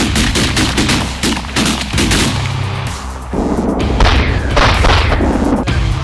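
Several shotgun blasts in quick succession over loud background music with a heavy bass line; the loudest shots come about four to five seconds in.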